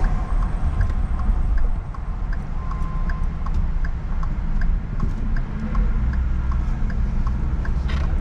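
Inside the cab of a Ford F-150 pickup: a steady low engine and road rumble, with a light tick repeating about twice a second.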